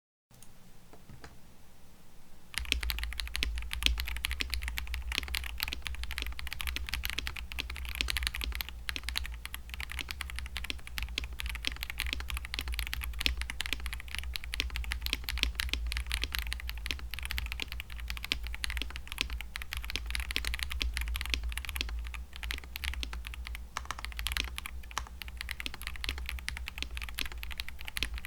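Fast continuous typing on a mechanical keyboard fitted with stock, unlubed Akko CS switches (KTT-made), a sound test of the switches. It starts faintly and becomes steady, dense typing from about two and a half seconds in.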